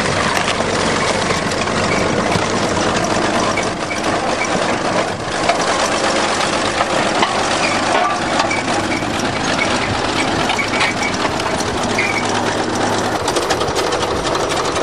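Bulldozer's diesel engine running steadily, with scattered metallic clicks and squeaks over it.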